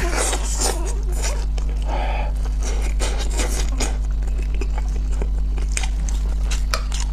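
Close-miked eating sounds: biting into and chewing a braised pork knuckle, its sticky skin and meat pulled apart with plastic-gloved hands, with wet smacks and clicks throughout. A steady low hum sits underneath.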